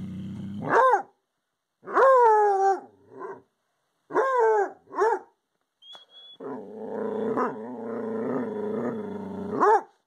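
A dog growling low, then giving howling bays that rise and fall: one about a second in, a longer one falling in pitch at two seconds, and two short ones around four and five seconds. A long low growl follows, ending in another bay near the end. The dog is baying and growling at a porcupine outside the glass door.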